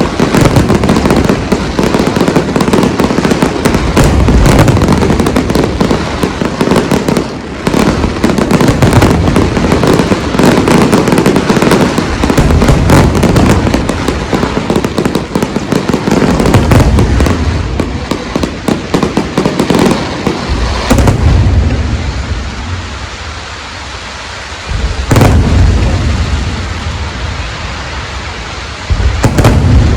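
Aerial fireworks display: a dense, continuous barrage of overlapping shell bursts and crackle, thinning after about twenty seconds to a few single loud bangs near the end.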